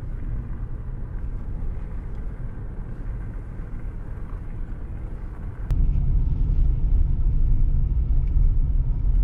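Steady low rumble of a car on the road. After a sharp click a little past halfway, the rumble steps up louder and stays there.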